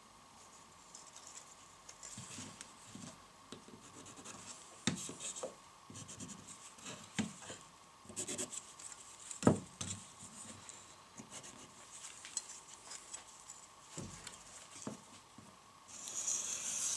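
Carpenter's pencil scratching lines onto a pine board while a small wooden jig is set down and slid on the workbench, giving light taps and one sharper knock about halfway through. A longer scratch comes near the end.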